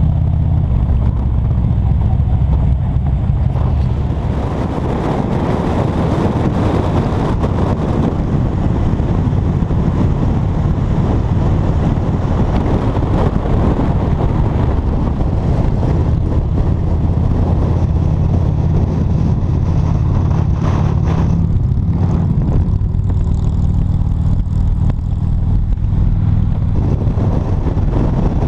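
Touring motorcycle engine running at road speed, with wind and road noise over it. The engine note eases about four seconds in and comes back steady in the second half.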